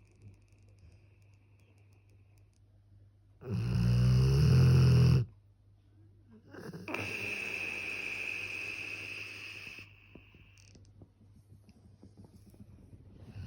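Sleeping puppy snoring: a loud, low, rattling snore about three and a half seconds in, then a longer, breathier snore with a whistle from about seven to ten seconds in.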